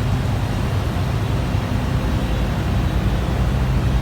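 Central air-conditioning outdoor condensing units running, a steady low hum with even fan noise.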